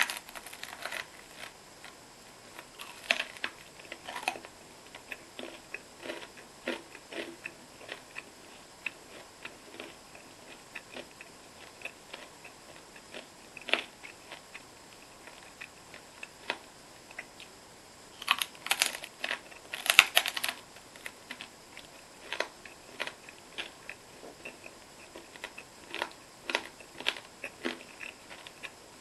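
Close-miked eating: chewing and wet mouth sounds, heard as irregular sharp clicks and smacks, with a louder cluster about two-thirds of the way in.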